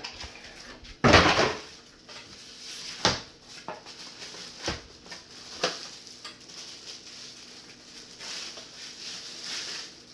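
Vacuum sealer packaging and bags being handled: a loud rustle about a second in, then several sharp knocks and a softer rustle near the end.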